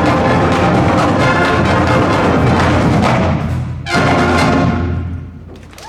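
Marching band of brass and drums playing the end of a song. A brief cut-off just before 4 seconds in, then a final held chord that fades away.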